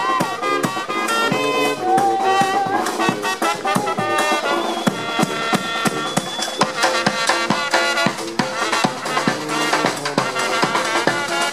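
Brass band with a sousaphone playing a tune over a steady drum beat.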